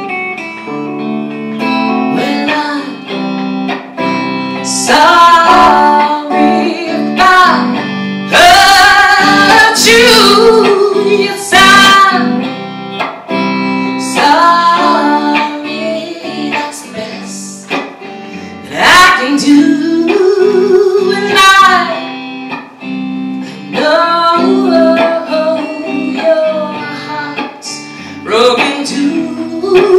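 A woman singing a song while playing an electric guitar, a Squier Stratocaster-style guitar.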